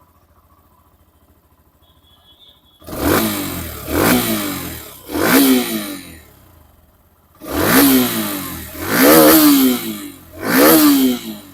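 Hero Xtreme 125R's single-cylinder 125 cc engine idles quietly for about three seconds, then is revved in six sharp throttle blips, each falling back toward idle. The owner takes the sound as a smooth engine with no abnormal noise.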